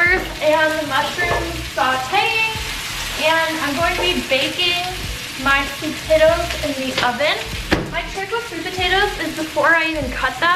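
Sliced peppers and mushrooms sizzling as they sauté in a frying pan, a steady hiss.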